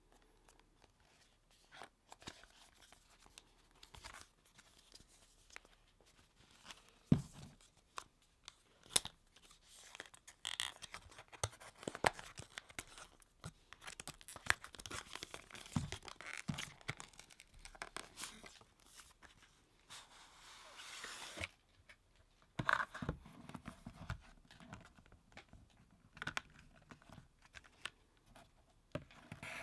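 Fingers and long nails handling and opening a thin white cardboard box: scattered taps, clicks and scraping, with the loudest knock about seven seconds in and a longer cardboard rasp about two-thirds of the way through.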